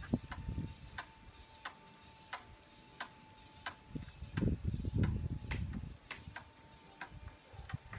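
Steady ticking, about three ticks every two seconds, over a faint steady high tone. Low rumbles come in about halfway through.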